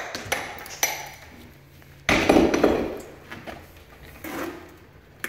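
A few light knocks and clicks, then one loud thud about two seconds in that dies away over nearly a second.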